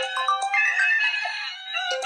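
Smartphone ringtone or alarm melody playing through the phone's small speaker: a short phrase of quick electronic notes that loops about every two seconds, with no bass.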